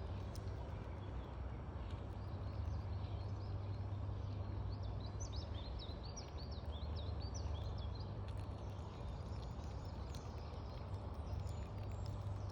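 Outdoor ambience: a steady low rumble, with small birds chirping in short high notes and a quick flurry of chirps in the middle.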